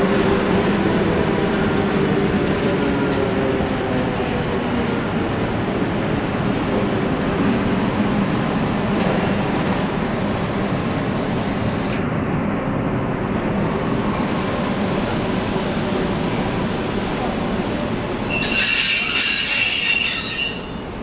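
An EP20 electric locomotive hauling a Talgo passenger train approaches with a steady rumble of wheels on rail. About two and a half seconds before the end, a louder, high-pitched metallic squeal of the wheels rises over the rumble.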